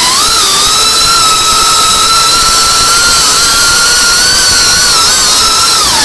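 FPV racing quadcopter's brushless motors and propellers whining at high speed. The pitch wavers with the throttle and drops near the end as the throttle is eased.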